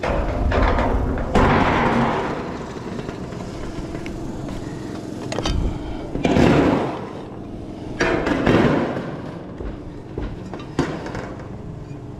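Metal standing-seam roof panels being handled and worked with hand tools: three scraping, rattling sheet-metal noises about a second long each, with sharp metallic clicks between them.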